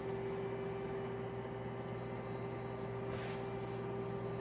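Gourmia French-door air fryer oven running just after being started at 375°: its convection fan makes a steady hum with one clear tone. There is a brief hiss about three seconds in.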